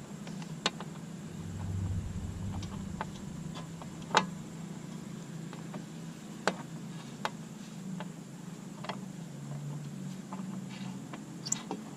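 Scattered sharp metal clicks and clinks of bolt hardware and an Allen wrench as a license plate bolt is fitted, the loudest about four seconds in, over a low steady hum.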